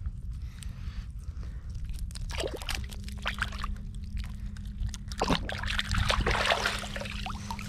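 Water splashing and sloshing in irregular bursts, heaviest about two-thirds of the way through, over a constant low rumble; a steady low hum comes in about three seconds in.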